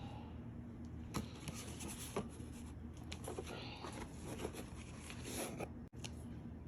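Faint rustling and crinkling of a delivery package being handled and opened, with a few sharp clicks and taps.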